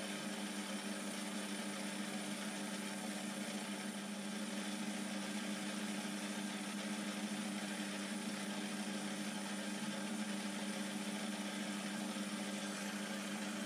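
Metal lathe running at a steady speed, a constant hum with a low tone, while the tool takes a light cleanup cut on the face of the spinning chuck blank.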